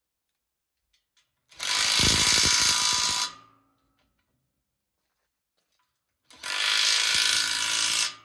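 Cordless drill-driver running in two bursts of a little under two seconds each, driving bolts to fix a caster's steel mounting plate to the frame; the second burst cuts off sharply near the end.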